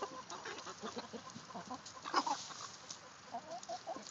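Chickens clucking quietly, many short clucks overlapping, with one louder cluck about two seconds in.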